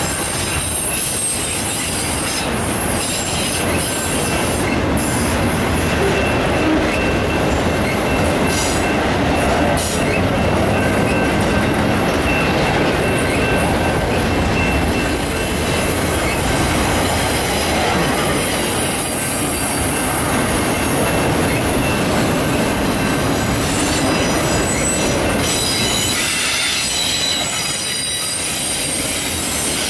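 Freight train of autorack cars rolling past close by: steady rumble of steel wheels on the rails with high-pitched wheel squeal riding on top.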